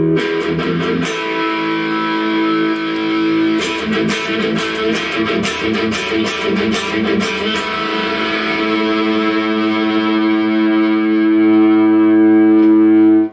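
Electric guitar played through a Peavey Envoy 110 solid-state combo amp on its second channel, with a distorted tone. Chords are strummed, with a run of quick picked strokes in the middle, then one chord is left to ring and sustain until it cuts off at the end.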